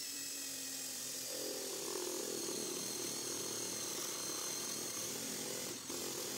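Electric power tool running steadily with a high whine; a lower, heavier tone joins about a second and a half in, as if it takes up load.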